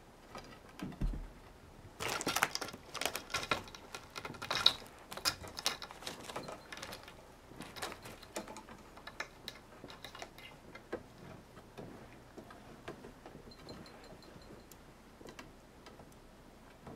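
Quick, irregular clicks, taps and scratches of cats' claws on a wooden pole as they scramble and bat at a feather toy. The clicks are densest and loudest from about two seconds in for several seconds, then thin out to lighter, scattered taps.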